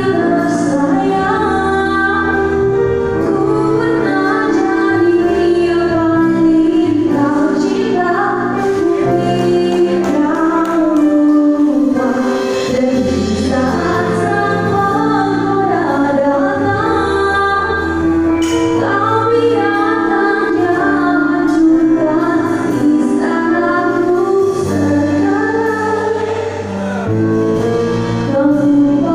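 Live band playing a pop song, a woman singing lead into a microphone over electric guitar and drums.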